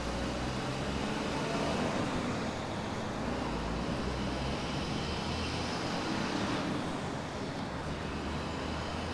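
Road traffic passing steadily on a busy city street, vehicle engines and road noise with no single event standing out.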